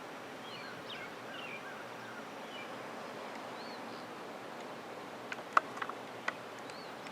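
Outdoor background noise with a few short bird chirps, then a quick cluster of sharp clicks about five and a half seconds in.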